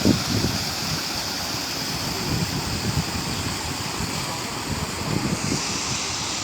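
Wind blowing over a steady hiss of rain, with gusts buffeting the microphone.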